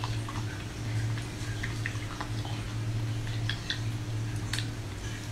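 Biting and chewing a hard frozen ice cream bar close to the microphone: scattered small crunches and wet mouth clicks over a steady low hum.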